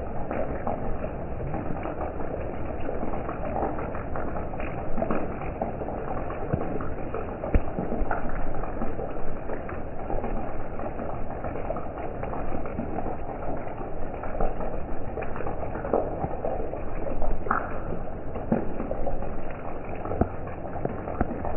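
Steady rain falling, a continuous hiss dotted with many small ticks of drops striking surfaces, one a little louder about 17 seconds in.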